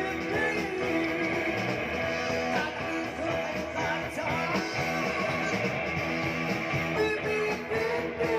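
A band playing a song, with strummed guitar to the fore over bass and drums.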